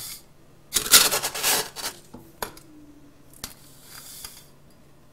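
Plastic scoop digging into a canister of granulated sugar with a gritty scrape, then sugar poured from the scoop into a glass measuring cup with a softer hiss, with a couple of light clicks of the scoop on the glass in between.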